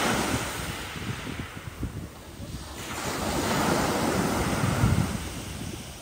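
Rough sea waves surging and breaking as the weather worsens, with wind buffeting the microphone. One wave's wash dies away in the first two seconds, then the next builds and crashes about five seconds in.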